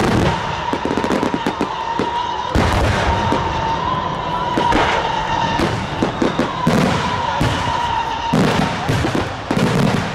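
Daylight aerial fireworks: a dense barrage of many small bursts exploding overhead, bangs and crackling in rapid succession, with heavier, deeper bangs about two and a half seconds in and again from about eight seconds on.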